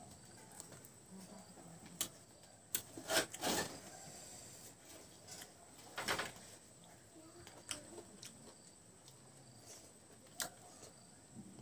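Close-up chewing of a mouthful of mutton curry and rice, with scattered wet mouth smacks and clicks. Soft squelching of fingers mixing rice into the curry.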